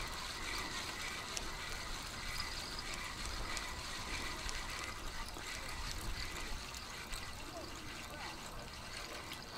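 Steady sound of water and wind along the reservoir shore, with a faint short squeak repeating about twice a second through most of it.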